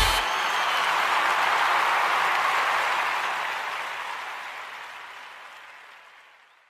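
Applause, steady for about three seconds and then fading out to silence.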